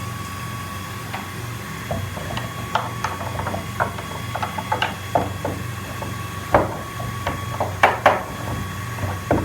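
Irregular wooden knocks, taps and rubbing as a CNC-carved jackfruit-wood panel and its cut-out pieces are handled, the loudest knocks a little past halfway. A steady low hum runs underneath.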